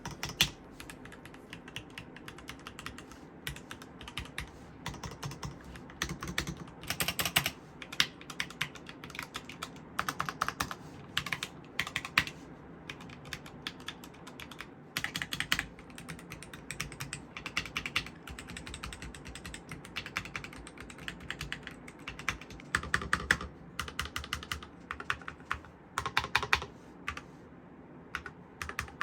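Typing on an ATTACK SHARK X68 HE 60% keyboard with OUTEMU White Jade magnetic switches: quick runs of key clicks with short pauses between bursts.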